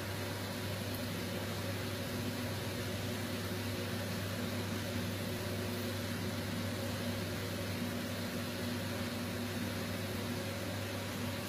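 Steady low hum with an even hiss, like a fan or appliance running, with no distinct events.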